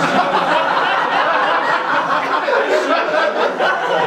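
A large crowd of guests laughing together, many voices at once, sustained throughout.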